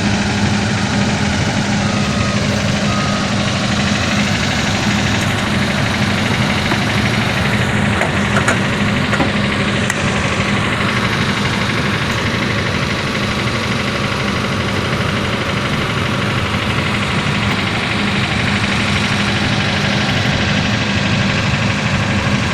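An engine running steadily at idle, a constant drone with a strong low hum and no change in speed.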